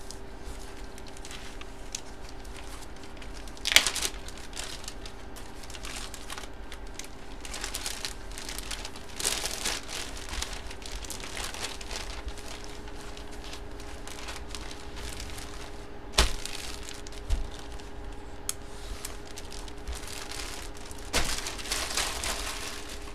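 Plastic packaging crinkling and rustling in irregular bursts as it is handled, over a faint steady hum.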